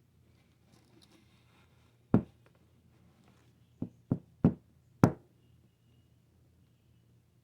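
Five sharp knocks on a hard surface: one about two seconds in, then four more in quick succession a little later.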